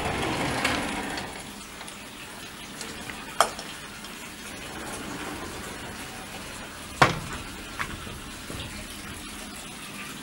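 Steady running and trickling of pool water, louder for the first second or so, with two sharp clicks, one about a third of the way in and one about two-thirds in.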